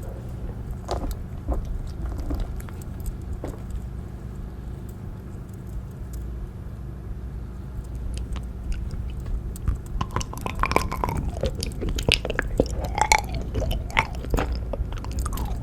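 Syrian hamster chewing and gnawing food, a scatter of small crunchy clicks at first, growing dense about two-thirds of the way through. A steady low hum runs underneath.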